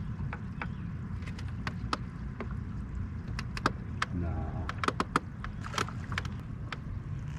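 Scattered light clicks and knocks of gear being handled aboard a small fishing boat over a steady low rumble, with a brief murmur about four seconds in.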